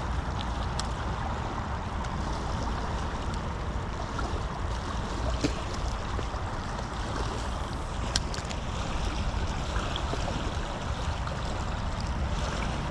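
Fast creek water rushing steadily over rocks in a riffle, with a few faint sharp clicks.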